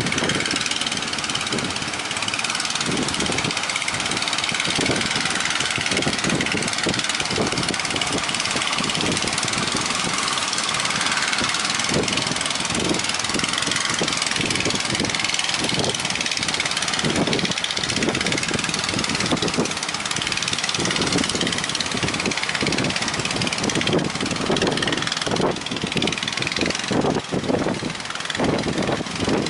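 Strong wind blowing, a steady rushing hiss with irregular low rumbles as gusts buffet the microphone.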